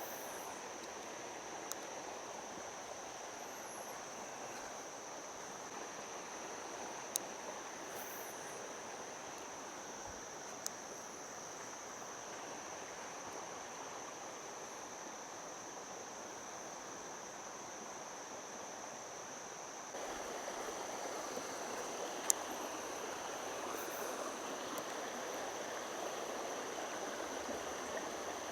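Creek water running steadily over rocks, with a continuous high, even insect trill of crickets over it. About twenty seconds in the water grows louder; a few faint ticks are scattered through.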